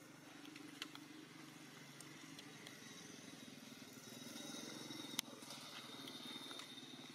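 Faint low drone of a motor vehicle engine running, swelling a little past the middle. A thin high tone joins in, and there is a sharp click about five seconds in.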